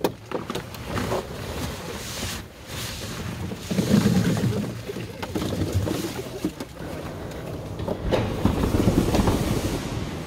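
Freshly picked apples let out of a picking bucket into a plastic harvest bin, a jumble of knocks and thuds as they roll over one another, loudest from about four seconds in.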